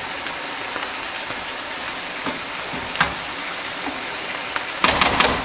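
Rapini, onion, ginger, carrot and celery sizzling as they sauté in a stainless steel saucepan, with a steady hiss. A spoon stirs them, giving a couple of light clicks and then a short burst of clatters against the pan near the end.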